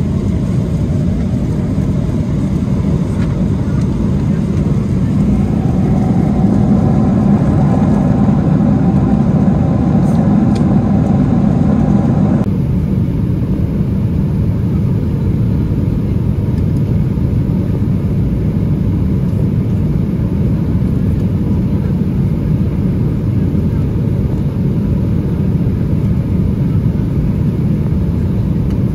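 Steady low cabin noise of a Boeing 777-300ER in cruise, the constant airflow and engine noise heard from an economy seat. About twelve seconds in the sound changes abruptly and loses some of its higher hiss.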